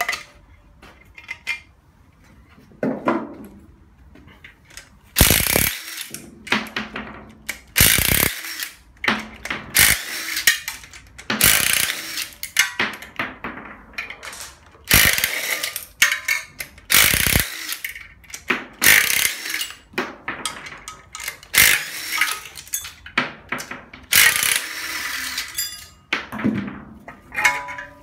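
Ratchet wrench clicking in a dozen or so short bursts, starting about five seconds in, as the exhaust manifold nuts are undone on a Hyundai Accent/Getz 1.5 16-valve engine. Metal clinks of tools and parts sound between the bursts.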